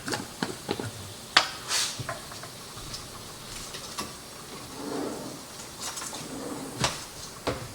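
Scattered clicks, knocks and light scraping of kitchen utensils and containers being handled as mayonnaise is measured out.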